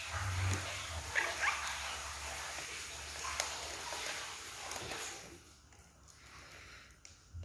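Monk parakeet bathing in a small plastic tub of water, splashing and flapping in it; the splashing dies down about five seconds in.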